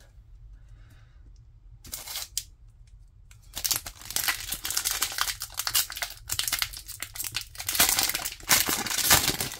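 Foil wrapper of a Pokémon Scarlet & Violet 151 booster pack crinkling in the hands, then being torn open. The crinkling starts a few seconds in and is loudest near the end as the wrapper tears.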